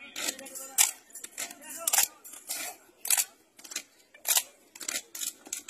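Sharp percussive beats in a steady rhythm, about two a second, keeping time for a children's group drill performance, with faint voices between the beats.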